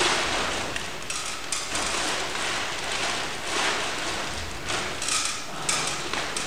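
A large plastic sheet rustling and crinkling, swelling and easing in irregular surges.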